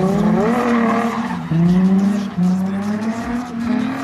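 Nissan 350Z's V6 revving hard while drifting on wet tarmac, the engine note climbing and dropping again several times, with the tyres skidding.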